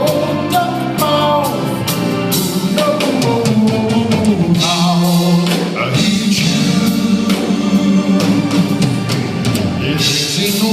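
Live band playing a song: a drum kit keeping time under sustained singing voices and instruments.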